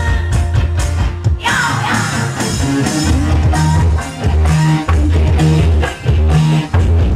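Loud band music with a steady drum beat, a repeating bass line and guitar.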